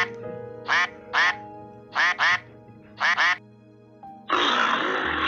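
Mallard duck quacking: about seven short quacks, single and in quick pairs, over the first three and a half seconds. About four seconds in, a loud, rough lioness growl cuts in and holds.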